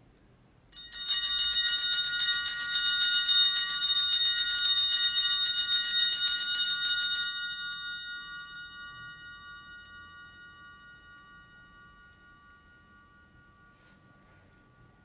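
Altar bells (Sanctus bells) shaken in continuous ringing for about six seconds, then left to ring out and fade slowly. They are the bells rung at the elevation of the host at the consecration of the Mass.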